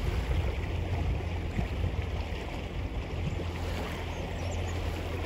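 Fishing boat sitting on the water with its motor running: a steady low rumble under a soft hiss of water and wind.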